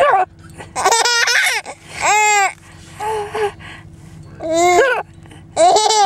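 A baby laughing and squealing in about six short high-pitched bursts, the pitch arching up and down within each.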